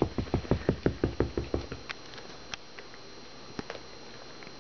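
A dog panting fast and close to the microphone, about six breaths a second, which stops about one and a half seconds in. After that come a few faint clicks.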